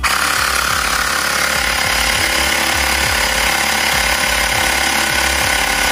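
Xiaomi first-generation portable electric air compressor starting suddenly and running steadily as it inflates a tyre toward a 33 psi setting. It is working again: it now reads the tyre pressure after an O-ring that blocked its hose connector was removed.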